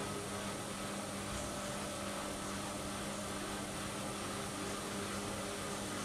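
Two front-loading washing machines, a Siemens Siwamat IQ 716 and a Bosch Aquasensor WFP3231, running side by side with laundry in their drums: a steady mechanical hum with a constant low tone.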